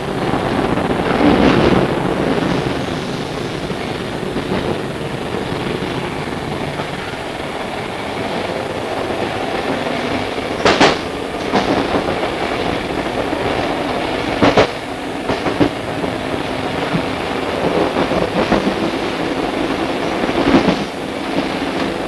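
CityRail R set double-deck electric suburban train running, heard from inside the carriage: a continuous rumble of wheels on the rails with a few sharp knocks, the loudest about eleven and fifteen seconds in, and a steady hum that comes in about ten seconds in.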